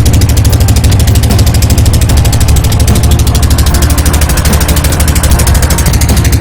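Motorboat engine running steadily at close range, a loud low chugging with a fast, even beat.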